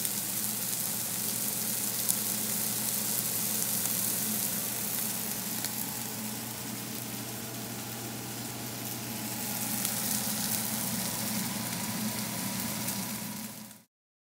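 Slices of smoked sausage sizzling and frying in a pan, a steady crackling hiss with a low hum underneath, cutting off suddenly near the end.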